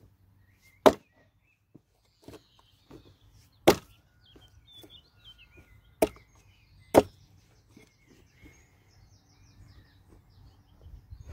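Hultafors 1500 g Agdor axe chopping into a log: four sharp blows at uneven intervals, the last two about a second apart. Birds chirp faintly between them.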